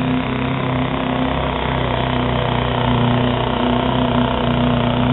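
Modified diesel pickup's engine running hard at steady high revs under full load while dragging a weight-transfer pulling sled, growing slightly louder toward the end.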